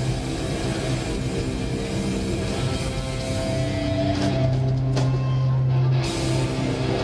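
Live rock band playing loud through an arena PA: distorted guitars and bass hold long notes. Cymbals crash a few times in the second half.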